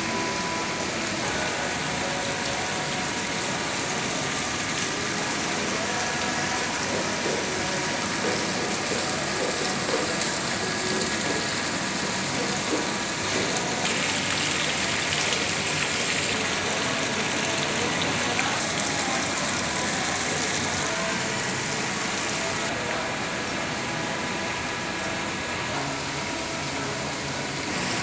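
Water running down a stone water-wall fountain and splashing into its basin: a steady, rain-like splashing hiss.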